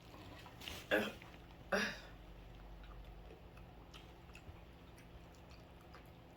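Quiet chewing of a crunchy spicy nut, with faint scattered crackles, and two short throat sounds about one second and two seconds in.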